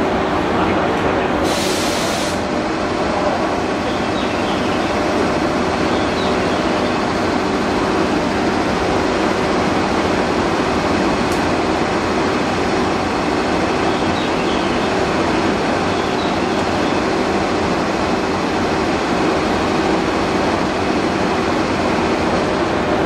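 Stationary train headed by an EF81 electric locomotive standing at the platform with its onboard machinery running: a steady mechanical hum with a droning tone. A short hiss comes about two seconds in, and insects chirp faintly.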